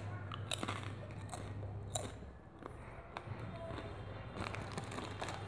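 Crunching and chewing of a fairly hard MuscleTech NitroTech nacho cheese protein chip, close to a clip-on microphone. The crunches are sharp and irregular, the loudest about two seconds in.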